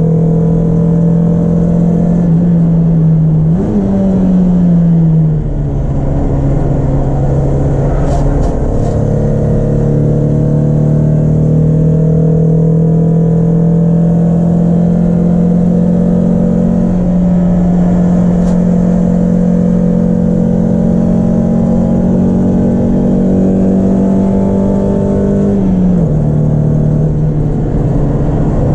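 Peugeot 306 S16's 2.0-litre 16-valve four-cylinder engine running hard at high revs, its pitch climbing slowly through a long pull. About four seconds in the revs jump and fall away, and near the end the pitch drops suddenly, as at a gear change.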